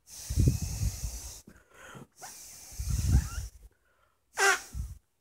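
Hard breaths blown through a blow pen marker, making a hissing spray of air with a windy rumble on the microphone, in two long blows of about a second and a half each. Near the end there is a short voiced sound and a soft thump.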